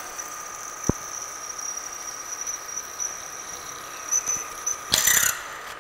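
Atrump variable-speed vertical milling machine (Bridgeport copy, 3 HP) drilling into a metal block under automatic quill feed: a steady high whine from the spindle and drill bit cutting, with a single click about a second in. Near the end comes a brief noisy clatter as the quill reaches its preset depth stop and retracts, and the higher cutting tone then drops away.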